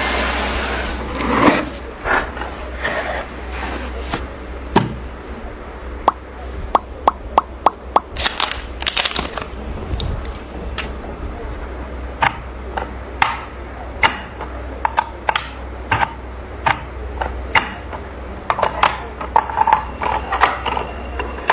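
Hands handling a desk lamp and its packaging: irregular clicks, taps and scrapes, including a quick run of small clicks, over a steady low hum.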